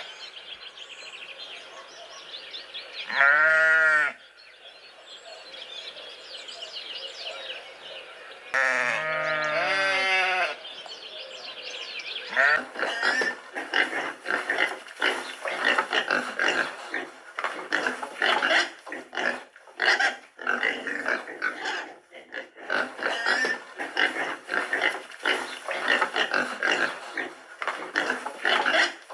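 Farm animals calling: two drawn-out, wavering pitched calls, about a second each, within the first ten seconds, then from about twelve seconds a continuous run of quick, rough, noisy calls.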